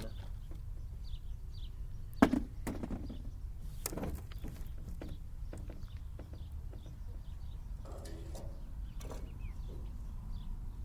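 Die-cast toy cars being handled and set down, with sharp clicks and knocks, the loudest about two seconds in and more around four and eight seconds, over a steady low hum.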